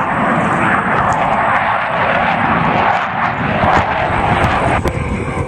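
Blue Angels F/A-18 Hornet fighter jets flying past, a dense, steady jet-engine noise that shifts abruptly near the end.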